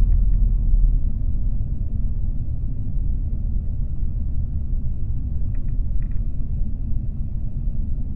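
Light aircraft's piston engine and propeller running steadily at low power during taxi, heard inside the cockpit as a continuous low rumble.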